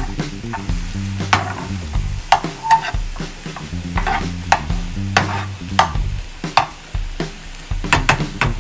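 Spatula scraping and tapping against a frying pan as scrambled eggs with diced tomatoes and onions are stirred and turned, in irregular strokes about once or twice a second, over the sizzle of the eggs cooking.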